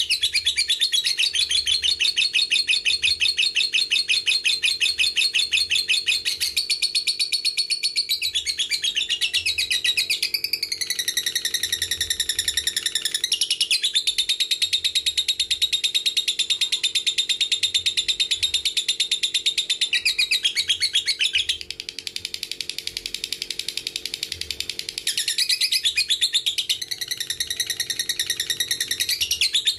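Lovebird singing its long 'ngekek' chatter: a rapid, unbroken run of high notes, many a second. It dips a little quieter for a few seconds about two-thirds through, then picks up again.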